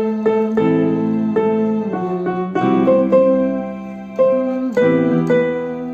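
Electronic keyboard in a piano voice, playing a slow melody one note at a time over held left-hand chords. New notes come roughly twice a second, each struck and then fading.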